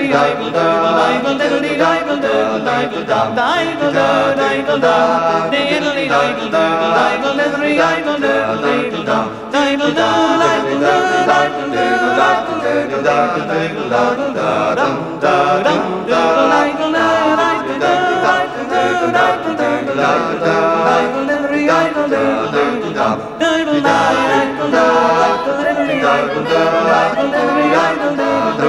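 Background vocal music: several voices singing together a cappella, like a choir.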